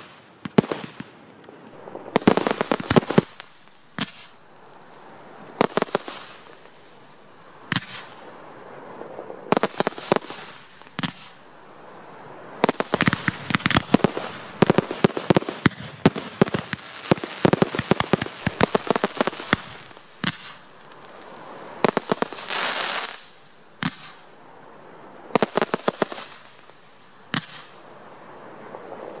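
Fireworks display: an irregular run of sharp bangs and crackles, some in dense rapid clusters, with a loud hiss swelling up about three-quarters of the way through.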